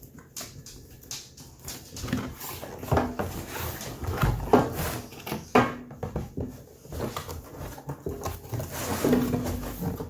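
Cardboard box and foam packaging being opened and handled, with irregular rustles, scrapes and knocks and a few short squeaks.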